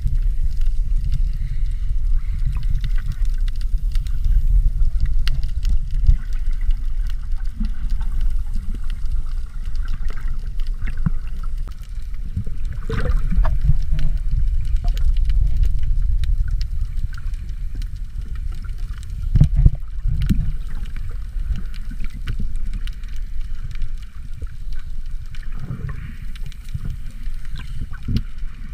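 Muffled underwater ambience heard through a camera held under the sea: a steady low rumble of moving water with scattered clicks and bubbly crackles, a few louder flurries of which come about 13, 19 and 26 seconds in.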